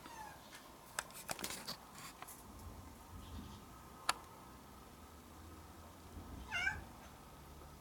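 Domestic orange-and-white cat meowing once, a short wavering call about six and a half seconds in, after a faint falling call at the very start. A few sharp clicks come in between, the loudest about four seconds in.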